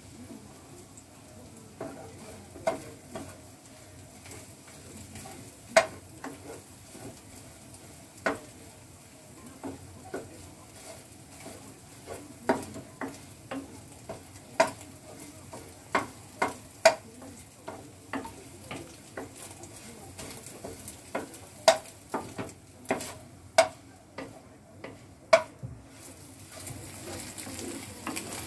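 Wooden spatula stirring and scraping scrambled egg in a frying pan, with irregular sharp knocks of the spatula against the pan over a faint sizzle of egg frying.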